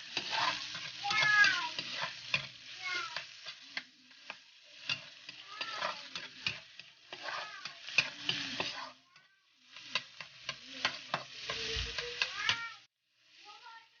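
Food sizzling as it fries in a pan, with a cooking utensil stirring and clicking against the pan throughout. The sizzle dips briefly about nine seconds in and stops near the end. Short, high, bending calls sound over it several times.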